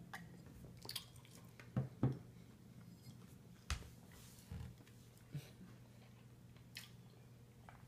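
Mostly quiet room with a few faint, scattered sounds: gulps and mouth noises from a person drinking milk and chewing, and a few soft knocks.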